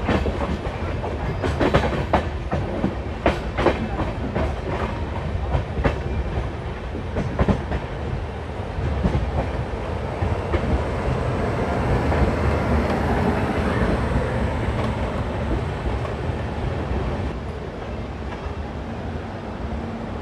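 Passenger train running on the rails, its wheels clacking over rail joints. The clacks come thick and irregular for the first several seconds, then give way to a steadier rumble that eases slightly near the end.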